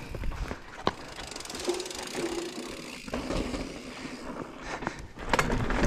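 Mountain bike rolling over a rocky trail section: tyres crunching on dirt and rock and the bike rattling, with sharp knocks about a second in and again near the end.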